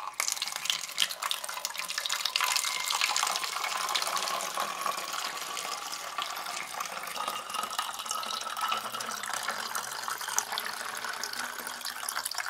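Vinegar pouring in a thin stream through a plastic funnel into a half-litre plastic bottle: a continuous trickling splash whose pitch rises slightly as the bottle fills.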